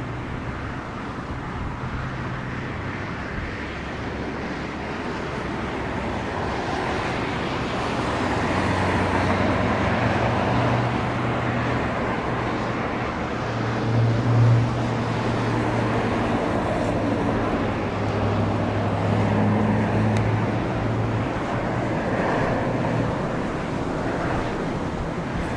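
Airliner on a gusty approach, its engine hum swelling from about eight seconds in and fading after about twenty, loudest briefly near the middle, over a steady rush of strong wind on the microphone.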